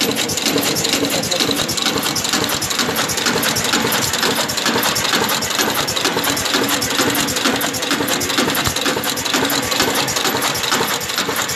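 Automatic pouch packing machine running: a steady, fast mechanical clatter of rapid clicks with no pauses.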